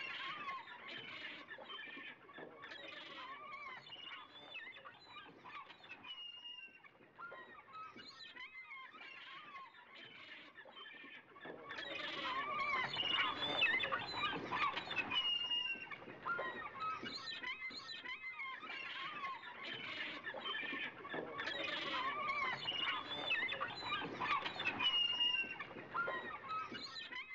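Gulls calling, a dense chorus of overlapping squawks and cries that grows louder about halfway through.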